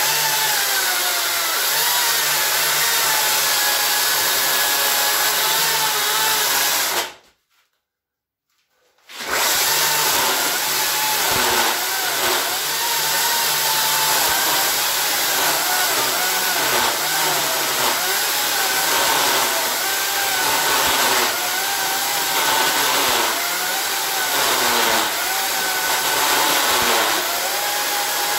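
Makita 36-volt cordless chainsaw cutting into a block of ash: a steady electric motor-and-chain whine. It stops completely for about two seconds a quarter of the way in, then runs again, its pitch dipping and recovering over and over as the chain bites into the wood.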